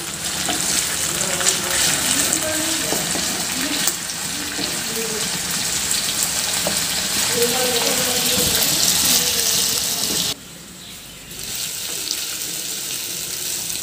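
Marinated chicken pieces sizzling steadily as they shallow-fry in hot oil in a wok, being turned to brown on both sides. The sizzle drops away briefly about ten seconds in.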